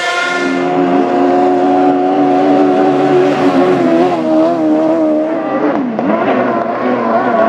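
Racing powerboat's outboard engine running at high revs. The pitch wavers a few times, then dips and climbs again about six seconds in as the boat rounds a turn buoy.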